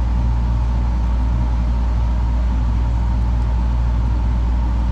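A steady low machine hum with a faint, higher steady whine above it. No distinct clicks or knocks.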